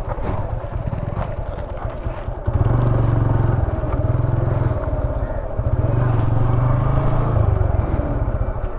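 Motorcycle engine running while riding, a steady low drone that gets louder about two and a half seconds in and eases briefly near the middle, with wind and road noise around it.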